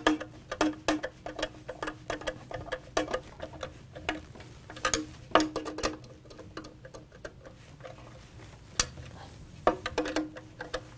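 Nut driver turning the hub fasteners of a fan rotor tight, making repeated metallic clicks with a short ringing after each. The clicks come irregularly, several a second for the first half, then a few sparse ones and another short run near the end.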